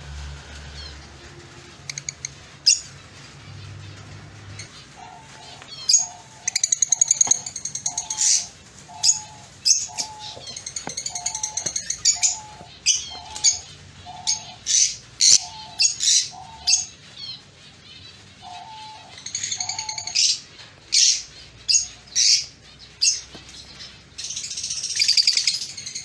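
Lovebirds chirping: many short, sharp, high-pitched chirps in quick bursts, louder and busier from about six seconds in. Under them a lower two-part note repeats about once a second for much of the time.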